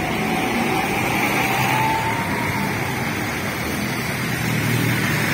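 A bus engine running close by amid road traffic, with a faint whine rising slowly in pitch over the first two seconds or so.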